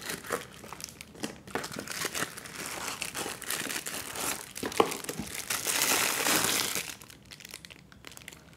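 Packaging crinkling and rustling, with small clicks and knocks, as a portable Bluetooth speaker box is opened and its contents taken out. The crinkling is loudest for a second or so around six seconds in.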